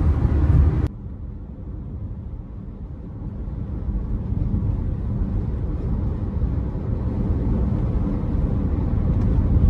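Road and engine noise inside a moving car's cabin: a steady low rumble that drops suddenly about a second in, then slowly grows louder.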